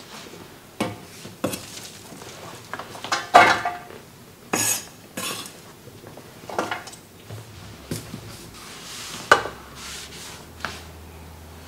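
Irregular knocks and scrapes of a kitchen knife and diced onion on a wooden cutting board, with a few sharper clinks against a dish as the pieces are gathered into it. A cloth rubs over the board in the second half.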